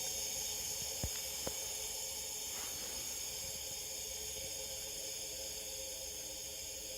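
Steady hiss of leakdown-tester compressed air escaping from cylinder 3 and out the exhaust, a sign that an exhaust valve is not closing fully. Two faint clicks sound about a second in and again half a second later.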